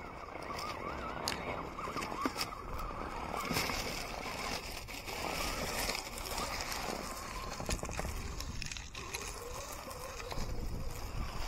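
1/10-scale RC rock crawler's 16-turn Reedy electric motor and drivetrain whining, the pitch rising and falling with the throttle as it crawls, with scattered clicks and scrapes from the tyres and chassis on the ground.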